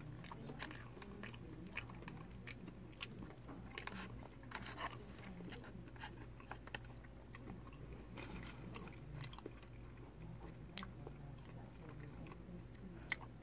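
A person chewing crispy fried catfish close to the microphone: wet mouth sounds and crunching, with scattered sharp clicks.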